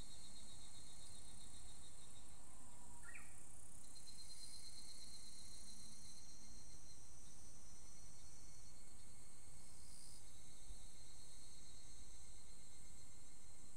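Evening cicadas (higurashi) calling together in a continuous high, pulsing chorus, with individual callers starting and stopping. About three seconds in, a faint short Japanese bush warbler phrase rises through it.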